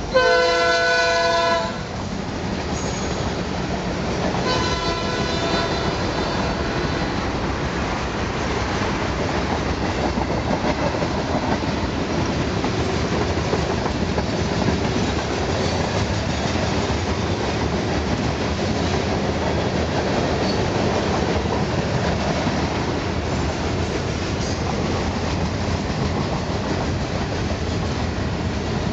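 Freight train locomotive horn sounding, cutting off about two seconds in, with a fainter second blast a few seconds later. After that the freight cars roll past steadily, wheels running on the rails.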